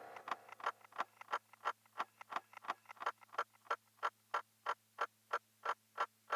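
Electronic instrument putting out a steady pulse of short clicks, about three a second, evenly spaced, over a faint steady hum.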